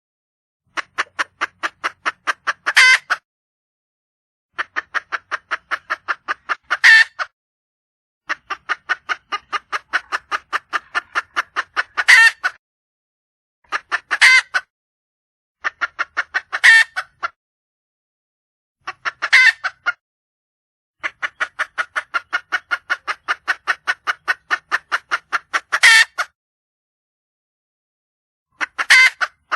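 A wild junglefowl hen giving its mate-calling call: runs of quick clucks, about five or six a second, each ending in one louder, drawn-out note. The call repeats about eight times with short silent gaps.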